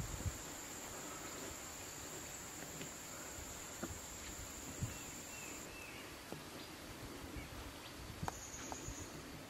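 Forest ambience with a steady high-pitched insect buzz that stops about six seconds in and comes back briefly near the end, over a low even background hiss and a few faint clicks.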